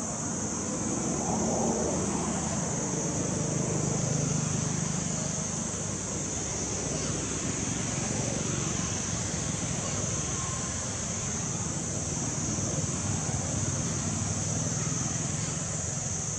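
Road traffic rumbling, swelling and fading as vehicles pass, under a steady high-pitched hiss.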